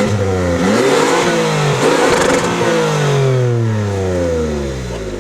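Lexus RX350 SUV engine revving hard under acceleration. The pitch climbs at first, stays high around two seconds in, then falls away steadily as the revs drop.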